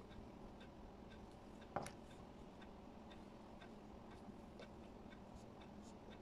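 Quiet room with faint, even ticking, about two ticks a second, and one sharper click about two seconds in, from a stylus and its pink silicone grip and caps being handled on a desk.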